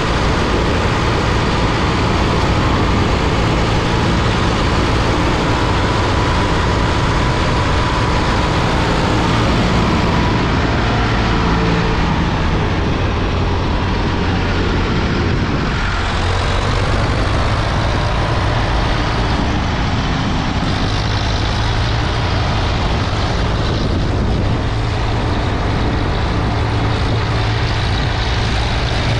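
Ford 3600 tractor's three-cylinder engine running steadily as the tractor drives down the road, under road and wind noise.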